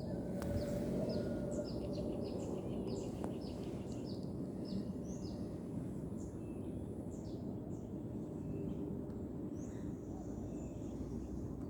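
Small birds chirping, many short high chirps in quick succession, over steady low background noise.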